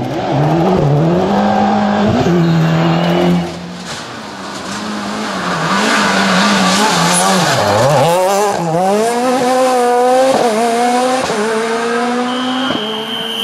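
Rally car engine revving hard, its pitch climbing and dropping again and again through gear changes. The loudness falls away suddenly about three and a half seconds in, then a second long stretch of hard revving follows.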